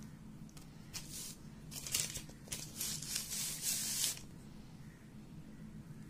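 Kitchen knife cutting through a soft slab of minced chicken cutlet mixture and scraping along a wooden chopping board, in a run of scraping strokes from about one to four seconds in.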